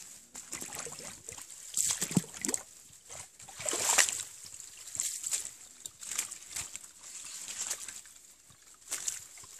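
Footsteps through dry leaf litter and shallow muddy stream water: irregular rustling and sloshing steps, the loudest about two and four seconds in.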